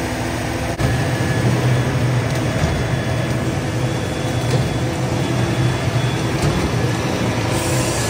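Heavy diesel machinery running steadily at high load: a concrete mixer truck turning its drum to discharge, together with a concrete pump, while wet concrete pours down the chute onto the pump hopper's grate.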